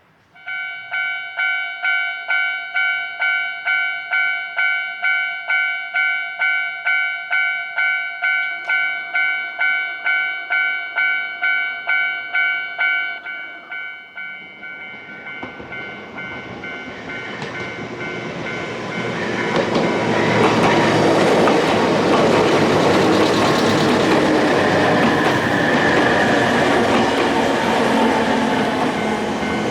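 Japanese level-crossing warning bell starts about half a second in and rings steadily, two to three strokes a second; about halfway through, a Nankai Kōya Line train approaches and runs past over the crossing, its wheel and track noise growing to the loudest sound and covering the bell.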